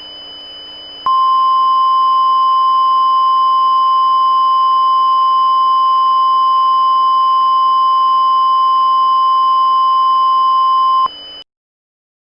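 Emergency broadcast alert tone: one steady, loud high-pitched tone held for about ten seconds, starting about a second in and cutting off abruptly, over a faint buzzing hum. It is the attention signal that opens an emergency action notification.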